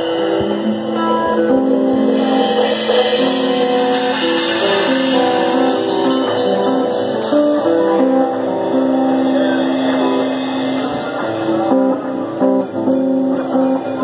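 A live band playing amplified music, with electric guitars to the fore playing held, changing notes.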